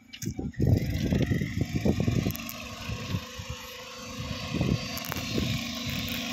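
Railway motor trolley's small engine running as the trolley moves along the track.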